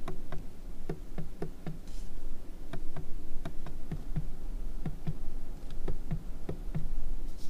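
Rapid run of short clicks, about three or four a second, from the ORA Ballet Cat's steering-wheel cruise-control switches being pressed to step the set speed and the following distance, over a low steady hum.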